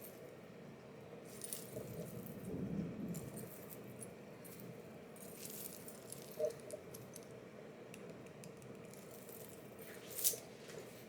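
Faint clinks and jingles from a metal wallet chain being handled, its links knocking together a few times.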